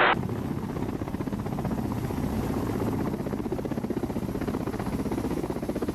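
Kamov Ka-52 attack helicopter hovering close by, its coaxial rotors running with a steady, fast, even rotor beat.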